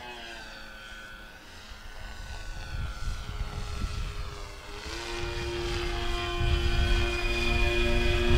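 Twin electric motors and propellers of a scale RC Aero MB-200 model whining in flight, the pitch gliding as it banks. The sound thins out in the middle, then about five seconds in comes back steady and grows louder as the model comes nearer.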